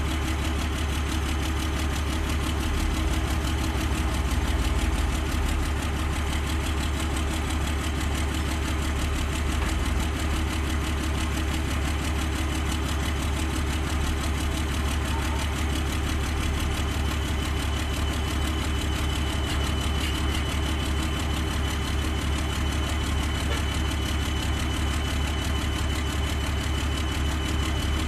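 Heavy diesel engine idling steadily: a low, even drone that holds the same pitch and level throughout.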